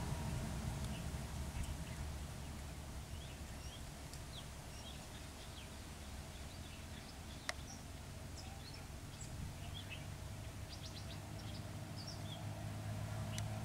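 Wild birds chirping in short scattered calls over a low, steady hum of vehicle engines, which fades in the middle and grows louder again near the end as motorcycles draw near. One sharp click about halfway through.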